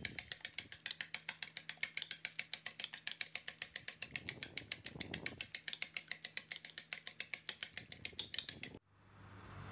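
Metal fork beating eggs in a ceramic plate: rapid, even clicking and scraping of the tines against the plate, several strokes a second, stopping abruptly near the end.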